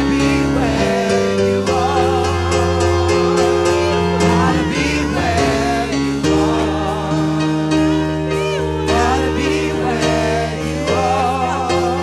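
Gospel praise team singing together into microphones over instrumental backing, with sustained bass and chord notes that shift every second or two.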